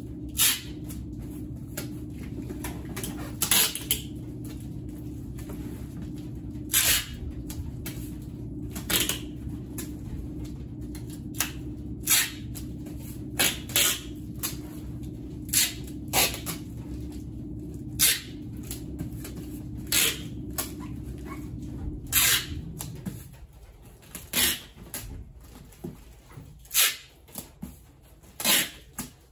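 Packing tape being pulled off the roll in short, sharp rips and pressed onto cardboard wrapping, over a steady low hum that cuts off about 23 seconds in.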